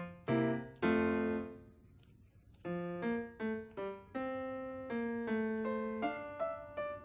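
Background piano music: single notes struck one after another, each dying away, with a brief pause about two seconds in before the melody picks up again.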